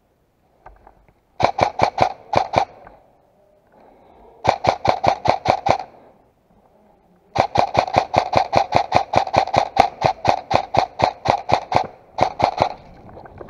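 Airsoft gun firing in bursts of rapid shots, four bursts with short pauses between, the longest about four and a half seconds of continuous fire, each shot a sharp ringing crack.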